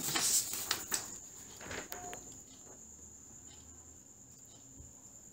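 A pause in the recitation, nearly quiet. A faint, steady high-pitched tone runs underneath. A few soft clicks come as the voice trails off in the first two seconds.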